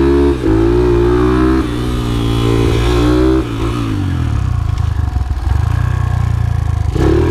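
Modified Yamaha TTR125 flat-track bike's single-cylinder four-stroke engine revving up and down as the rider rolls on and off the throttle. The note breaks briefly about half a second in, climbs around two to three seconds, then drops lower and rougher for a few seconds before picking up again near the end.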